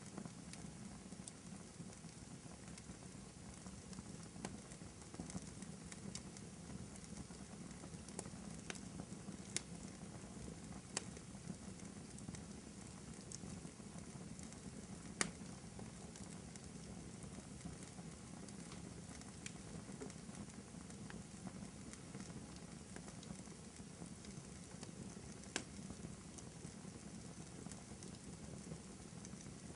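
Wood fire crackling in a fireplace: a low steady rumble of flames with scattered sharp pops and snaps, the loudest pop about halfway through.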